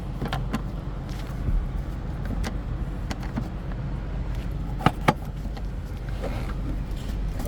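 Scattered light clicks and taps of plastic parts being handled and fitted as the latch cover of a 2007 Honda Civic center console lid goes back over its tabs, two sharper clicks close together about five seconds in, over a steady low hum.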